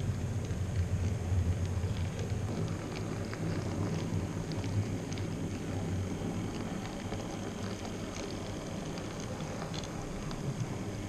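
N-scale model freight trains running on the track: a steady motor hum and wheels rolling on the rails, with many small irregular clicks of wheels over the track joints. A red Roco V 320 diesel locomotive with its wagons passes close near the end.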